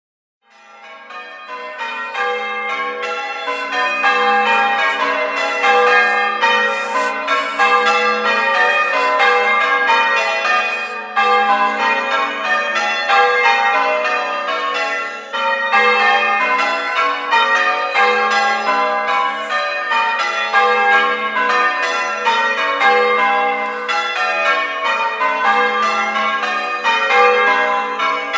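Church tower bells change ringing: a ring of bells struck one after another in a rapid, continuous sequence of changes, fading in over the first few seconds.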